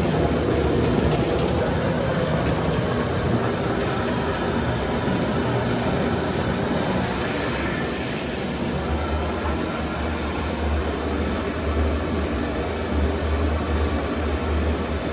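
Grape destemmer and cleated grape elevator running together: a loud, steady mechanical rumble with a low hum as destemmed grapes are carried up into a fermentation tank.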